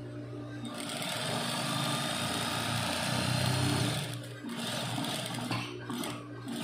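Sewing machine stitching a seam in fabric: a steady low hum, then the machine runs from about a second in, with two brief pauses in the stitching near the end.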